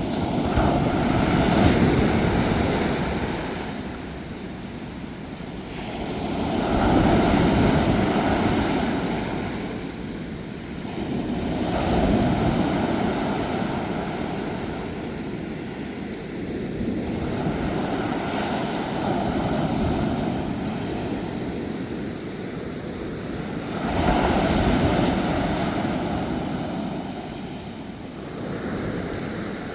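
Ocean surf: waves breaking and washing in, the rushing swelling and fading about every five to six seconds.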